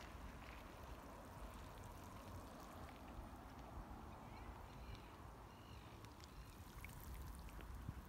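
Faint, gentle lapping of shallow seawater at the shore, with a steady low rumble underneath.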